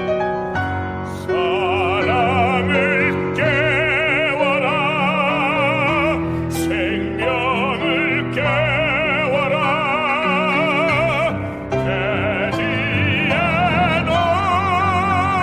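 Operatic baritone voice singing a Korean art song with wide vibrato over instrumental accompaniment. The voice enters about a second in and breaks off briefly twice between phrases.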